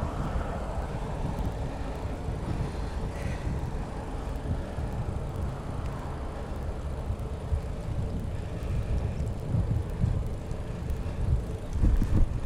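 Wind buffeting the microphone over the tyre rumble of a Brompton folding bicycle rolling along a concrete path, with a louder rumble near the end as it reaches brick paving.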